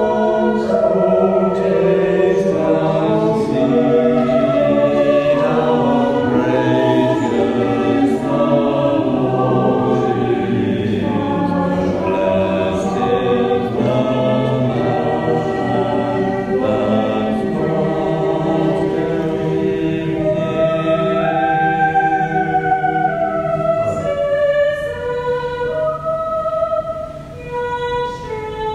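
Choir singing a hymn in harmony, several voices holding notes together. About 24 seconds in the singing thins out to fewer voices and gets quieter.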